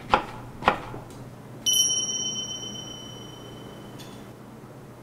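Two light clinks in the first second, then a single bright, bell-like ding under two seconds in that rings on and fades over about two seconds.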